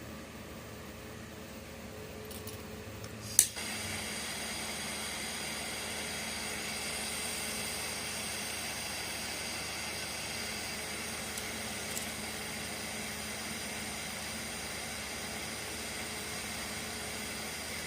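Ronson 8008 butane torch lighting with a single sharp click of its auto-start igniter about three seconds in, then burning with a steady hiss on a low flame setting while it heats the soldering tip.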